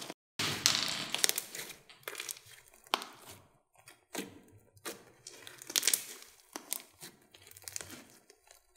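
Hands kneading, pressing and stretching a mass of glossy slime mixed with foam beads: irregular bursts of sticky crackling with sharp clicking pops, about a dozen squeezes with short gaps between them.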